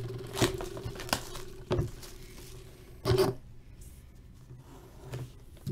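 A cardboard hockey card hobby box being opened by hand: light scraping and rubbing of cardboard with a few small sharp ticks. There is one brief, louder scrape or tear about three seconds in.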